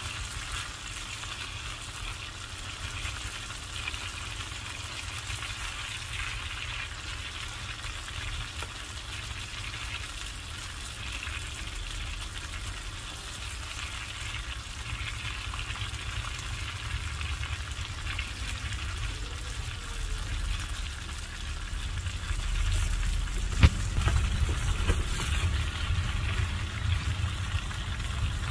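Tongue sole fish pieces deep-frying in hot oil in a shallow iron pan, a steady sizzle and crackle. One sharp knock sounds near the end.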